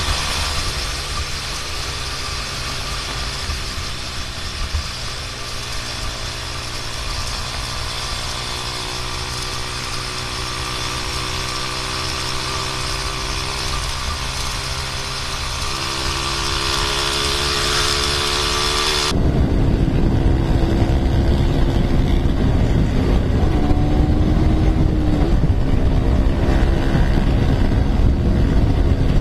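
Motorcycle engines heard from on-board cameras while riding at speed, with strong wind noise on the microphone: first a sport bike's engine under loud wind hiss, then, after a sudden change about two-thirds through, a KTM Duke 200's single-cylinder engine under heavy low wind buffeting.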